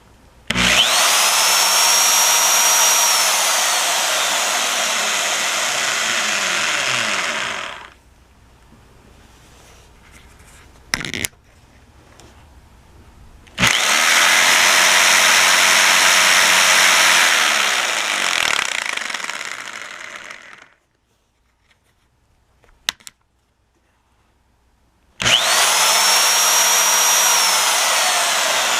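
Electric drill being test-run: three times its motor spins up with a rising whine, runs at steady speed for several seconds, then winds down. A couple of short clicks fall in the pauses between runs.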